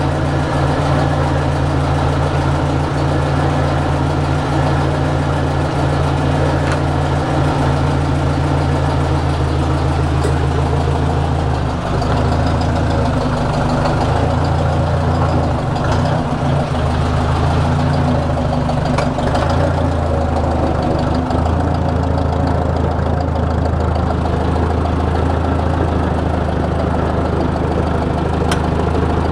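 Old farm tractor's engine running steadily, heard close up from the driver's seat as the tractor is driven; the engine note shifts slightly about twelve seconds in.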